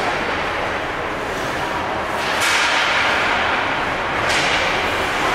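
Ice hockey play on a rink: a steady scrape and hiss of skates on the ice, with two sharp cracks of the puck being hit, about two and a half and four and a quarter seconds in.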